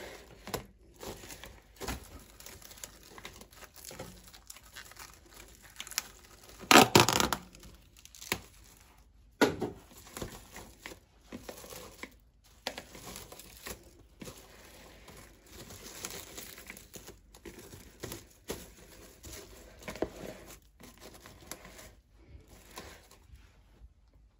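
Plastic cling film pulled off its roll, torn and crinkled as it is stretched and pressed around the rim of a bowl, an irregular rustling with a loud burst about seven seconds in.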